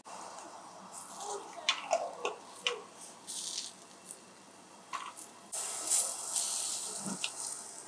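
Lula kebab, peppers and aubergines grilling over charcoal: a sizzling hiss with scattered pops and crackles. The sizzle grows louder a little past halfway, then eases.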